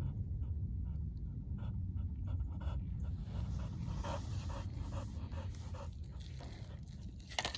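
Dog panting steadily close to the microphone, a few quick breaths a second, over a low wind rumble, with a sharp knock near the end.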